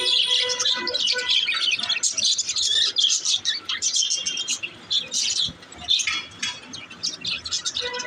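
Budgerigars chirping and chattering: a dense, rapid run of short high calls from several birds.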